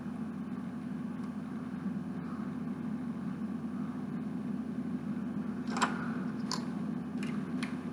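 Plastic Lego pieces clicking as they are pressed and fitted together by hand: four sharp clicks in the last two seconds, the first the loudest. A steady low hum runs underneath.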